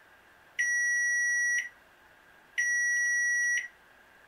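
KitchenAid KCM08OB coffee maker beeping to signal that brewing is finished: two long, steady, high-pitched beeps of about a second each, about two seconds apart.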